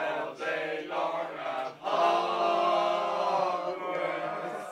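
A man's voice chanting in a drawn-out, sung tone: a few short phrases, then one long held note through the second half.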